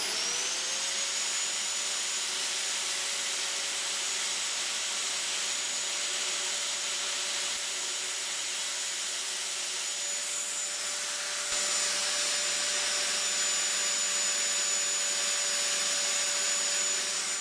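Angle grinder running at one steady pitch with its disc grinding the teeth off a hard steel bandsaw blade. The sound steps louder about two-thirds of the way through, and the motor starts winding down at the very end.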